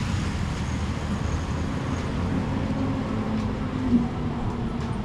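Steady city street traffic: the low, even running of vehicle engines on the road, with a slight swell about four seconds in.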